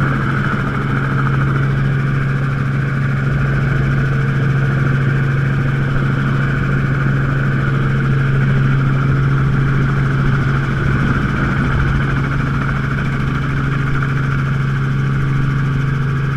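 Helicopter running steadily: a constant low hum with a steady higher whine above it.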